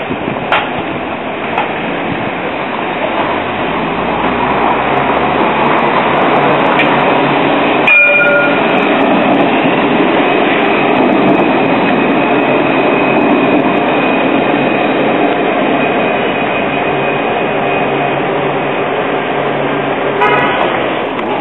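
A five-section Alstom Citadis tram passes, its running noise swelling and staying loud for several seconds, with a steady high whine over it. A short pitched horn-like tone sounds about eight seconds in.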